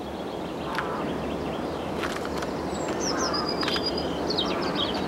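Birds chirping and calling over steady background noise, the chirps mostly in the second half, with a few sharp clicks.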